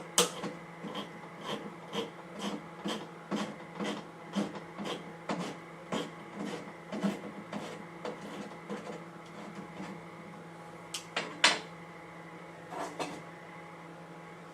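Hand-cranked can opener working around a can of peas: a short click with each turn of the handle, about two a second, then a few louder clicks near the end.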